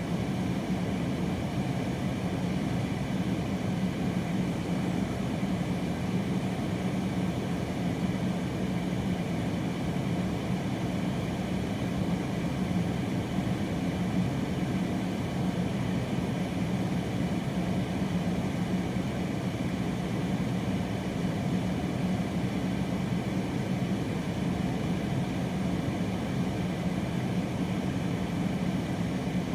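A steady low hum over a rushing noise, unchanging in level or pitch.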